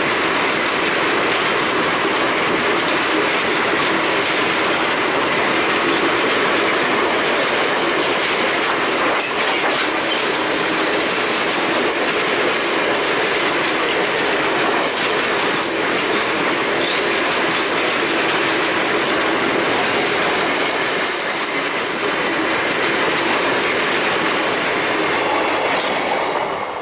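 Freight train of open wagons rolling past close by: a steady, loud rumble and clatter of wagon wheels on the rails. The noise falls away at the very end as the last wagon passes.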